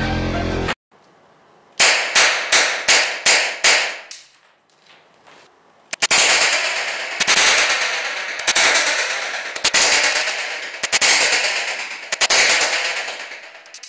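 Mateja-Start Shotgum revolver firing 10 mm rubber bullets launched by 6 mm blanks. First a quick run of about six sharp shots in two seconds, then about six louder shots a little over a second apart, each ringing out with a long echo.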